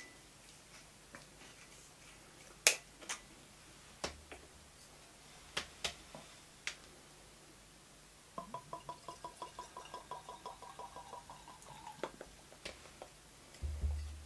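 A few sharp clicks of the rum bottle's cap and glass being handled. About eight seconds in, rum glugs out of the bottle into a tasting glass in quick, regular pulses for a few seconds. Near the end there is a low thump as the bottle is set down on the table.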